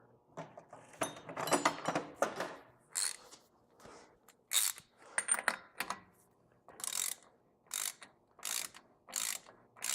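Hand socket ratchet clicking as the axle shaft nut is run down on the stub shaft, in uneven strokes at first and then in regular back-and-forth swings, one about every 0.7 s, in the second half.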